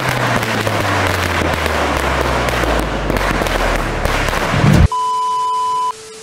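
A string of firecrackers going off in a dense run of rapid crackling bangs, with a deep tone sliding downward underneath. About five seconds in it cuts off abruptly to a steady test-pattern beep lasting about a second.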